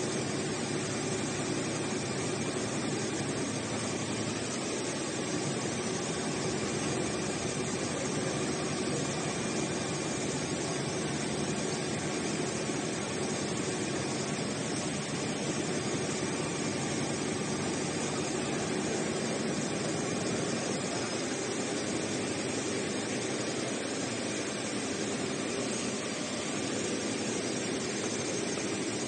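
Richpeace computerized heating-wire sewing machine running, its sewing head stitching as the gantry moves across the sheet: a steady mechanical whir with a constant hum.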